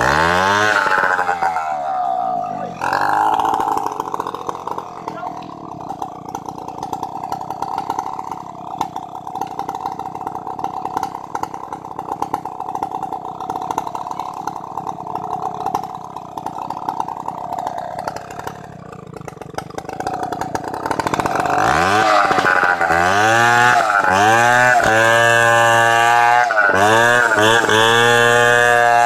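Stihl 070 two-stroke chainsaw: its revs drop at the start and it runs steadily at lower speed for a long stretch. From about three quarters of the way in it is revved up and down repeatedly and louder as the bar goes back into the log for a milling cut.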